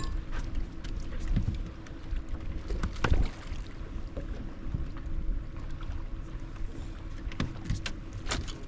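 Lake water sloshing against a fibreglass bass boat's hull with wind on the microphone, under a faint steady hum. A knock comes about three seconds in, and a quick run of sharp splashes and knocks comes near the end, as a fish is brought to the side of the boat.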